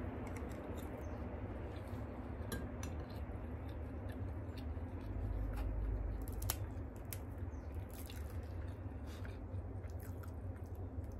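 Close-up chewing and wet mouth sounds of eating Dungeness crab, with scattered sharp clicks and cracks of crab shell being pulled apart by hand, the loudest crack about six and a half seconds in. A steady low rumble lies underneath.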